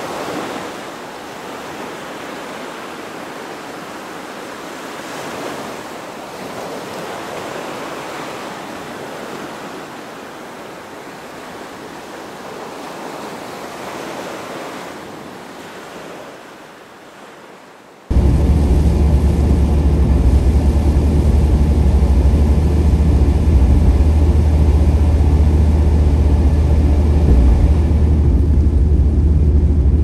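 Surf on a beach, the waves swelling and washing out. About eighteen seconds in, it cuts abruptly to a much louder, steady low rumble.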